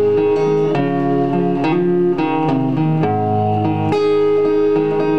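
A small band playing live, led by strummed guitar chords that change about every second over held notes.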